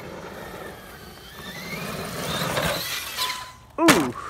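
RC monster truck's electric motor whining higher and louder as it accelerates over dirt, then about four seconds in a sudden loud burst as the truck hits the dirt and tumbles over in a backflip, together with a short human exclamation.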